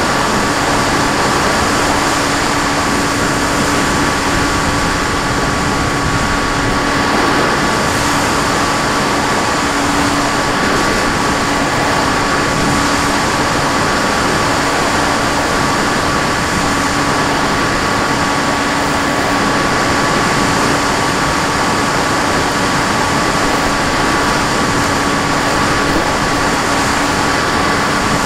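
A radio-controlled FPV aircraft's motor and propeller in flight, holding a steady hum at constant throttle under a loud, even rush of air.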